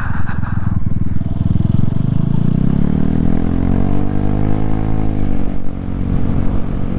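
Vespa scooter's single-cylinder four-stroke engine pulling away and accelerating. Its pitch rises over about three seconds, then holds and eases off slightly near the end.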